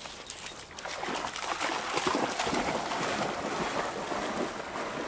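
Steady splashing of lake water as a dog runs and paddles through it, starting about a second in.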